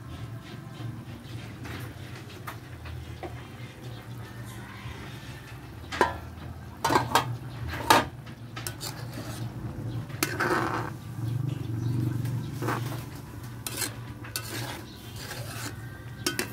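A metal ladle clanking and scraping against a metal cooking pan while stirring a simmering chicken curry, with several sharp clanks about six to eight seconds in and more scraping and knocking after that.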